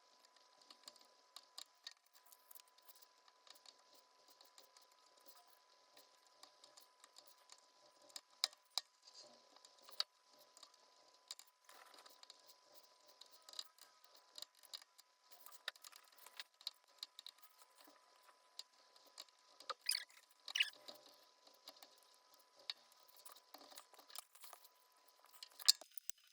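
Irregular light clicks, taps and scratches of small hand tools working wood veneer in marquetry, with a few sharper clicks about twenty seconds in and near the end. A faint steady high tone sits underneath.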